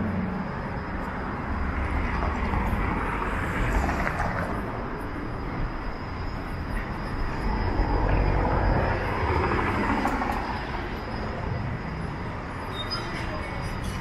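City street traffic: a steady wash of car engine and tyre noise, swelling about eight seconds in as a vehicle passes.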